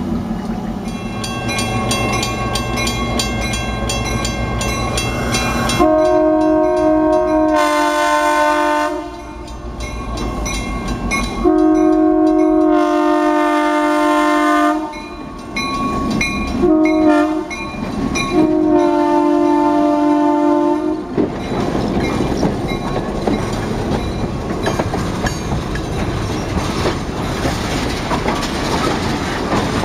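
Diesel locomotive air horn sounding the grade-crossing signal, long, long, short, long, over the rumble of the passing train. Then the train rolls on with wheels clicking over the rail joints.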